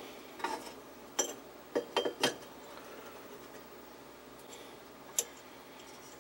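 Sharp clicks and light clinks of glass vacuum tubes being handled and pushed into their sockets on a metal TV chassis. There is a quick cluster of clicks in the first two and a half seconds and a single click about five seconds in.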